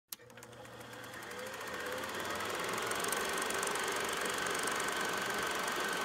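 A click, then a steady mechanical whirring with fast ticking that fades in over the first few seconds and holds.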